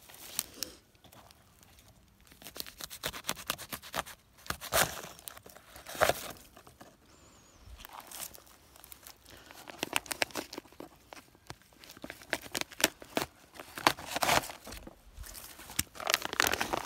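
Plastic nursery bag being cut and torn away from a young fruit tree's root ball, crinkling and tearing in several spells with short pauses.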